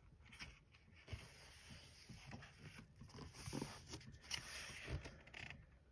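Faint rustling and soft taps of coloring-book pages being handled and turned, busiest in the second half.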